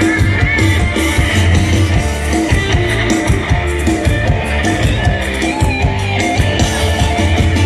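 Isan Thai band music with a steady beat: a strong bass line, drums and a plucked-string lead.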